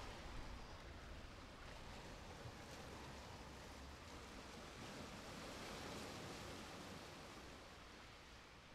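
Faint, even outdoor rush of distant sea surf and breeze, easing slightly toward the end.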